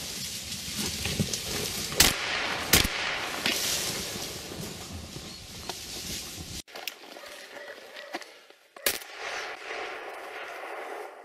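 Gunshots on a wild boar hunt: two sharp shots about three quarters of a second apart about two seconds in, then a third shot near the end, over a steady rushing background noise that drops away suddenly midway.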